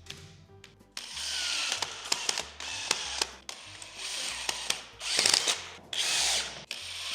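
Power drill run in short bursts, about six times with brief pauses after a quiet first second, fixing into the wall plugs set for a speaker bracket.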